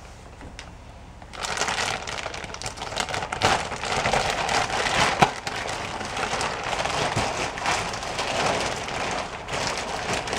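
Plastic wrapping of a memory foam mattress crinkling and rustling as it is pulled and cut away, starting about a second and a half in and going on busily.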